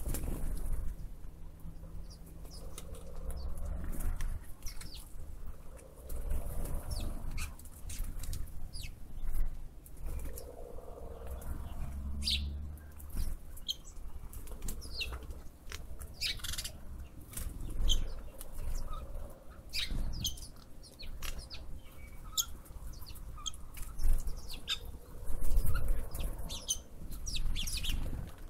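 Birds chirping in many short, high calls scattered throughout, over a low, uneven rumble.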